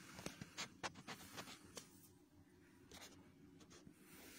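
Faint steady low hum of a ship's machinery heard inside a cabin, with a quick run of light clicks and rustles in the first two seconds.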